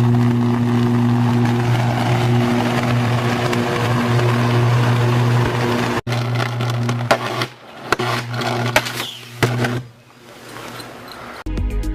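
High-voltage electrical arcing on power lines: a loud, steady buzz with a crackling hiss. About six seconds in it breaks off and a second arc buzzes with several sharp cracks, dying down near the end.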